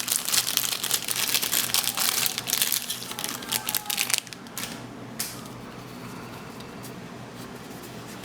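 Plastic wrapping of a pack of trading cards crinkling and crackling as it is torn open and pulled off, stopping about four seconds in. A few faint clicks follow.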